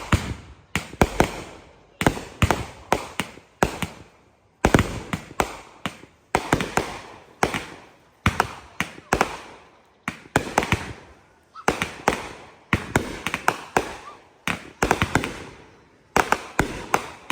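Backyard consumer fireworks going off: a steady run of sharp bangs in quick clusters, several a second, each with a short echoing tail.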